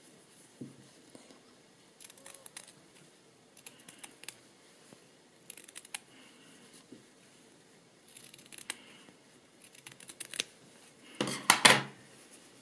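Small Fiskars needlework scissors snipping through teal cotton-lycra jersey, trimming a cuff's seam allowance close to the stitching: short clusters of snips every second or two. A louder burst of snipping and fabric handling comes near the end.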